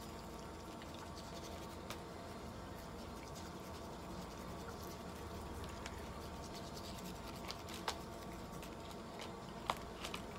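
Faint handling noises over a low steady room hum: soft rustling and scratching with a few small clicks and taps as a swab and hands work against a cat's clear plastic Elizabethan collar. The sharpest tap comes near the end.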